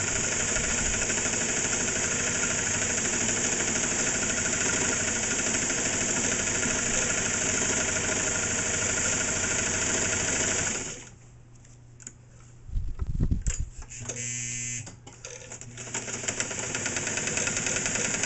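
Singer 237 sewing machine running fast and steadily, stitching through fabric with the feed dogs pulling it along. It stops about 11 seconds in, then a few seconds of quieter handling with a thump, and the machine starts sewing again near the end.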